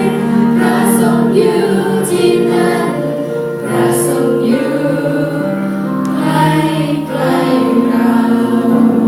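Youth choir singing in harmony, holding long chords that shift to new chords a few times.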